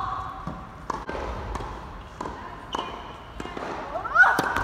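Tennis ball bounced on a hard court several times, about once every half-second or so, before a serve; about four seconds in a short rising squeal is followed by the crack of the racket striking the serve.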